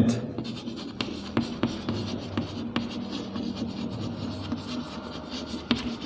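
Chalk writing on a blackboard: a string of irregular taps and scratches as words are written.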